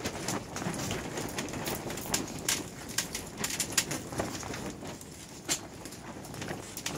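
Green plastic fan rake dragging and scraping through loose soil in irregular strokes, with small crackles and clicks from clods and stones as the bed is levelled. The strokes ease off about five seconds in.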